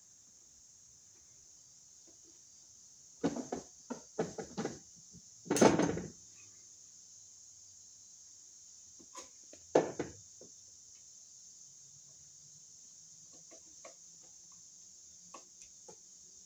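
Handling noises from wiring a 30-amp receptacle: a cluster of clicks and knocks as the copper ground wire is bent and the receptacle shifts against its metal box, about three to six seconds in, the loudest near six seconds, another sharp knock around ten seconds and a few light clicks near the end. A steady high-pitched hiss runs underneath.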